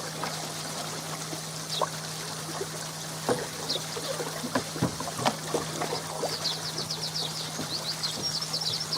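Water pouring and trickling steadily through the koi pond filter system, with a steady low hum and scattered light knocks and clicks. A bird chirps rapidly from about six seconds in.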